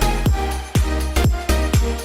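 Background music with a steady, heavy kick-drum beat, about two beats a second.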